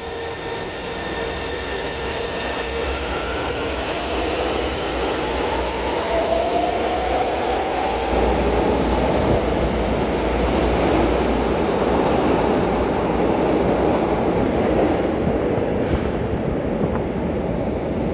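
A São Paulo Metro train pulling out of the platform and speeding up past it. The rumble of its wheels on the rails grows steadily louder, with a motor whine rising in pitch from about six seconds in.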